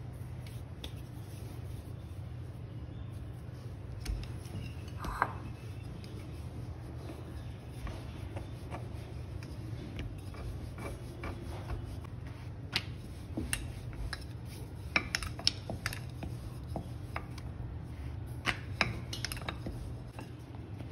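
Wooden rolling pin rolling dough into a thin sheet on a round wooden board, with scattered light knocks and clicks that come more often in the second half. A steady low hum runs underneath.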